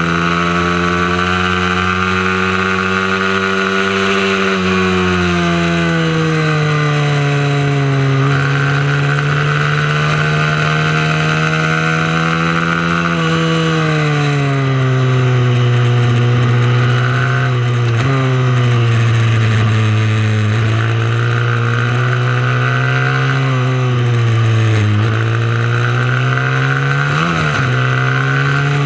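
Mini moto racing bike engine running hard on track, its note rising and falling every few seconds as the throttle is worked. There are several quick dips in pitch in the second half.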